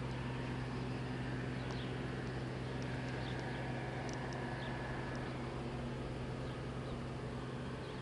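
Deutz-Fahr Power Liner Climber combine harvester running, heard as a low, steady drone with no change in pitch. A few faint, short high ticks sound above it.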